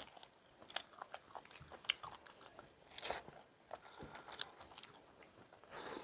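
Two people eating rice and curry by hand, heard faintly as chewing with irregular soft mouth clicks and smacks.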